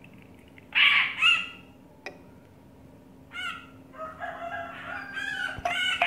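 A rooster crowing: a long pitched call from about four seconds in to near the end, after louder short bird calls about a second in. A faint steady low hum runs underneath.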